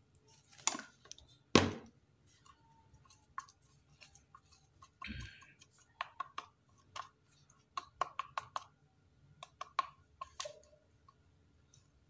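Scattered sharp clicks and taps as a three-week-old hill myna chick is hand-fed in a wire cage. Two louder clicks come in the first two seconds, and a quick run of clicks from about six to ten seconds in.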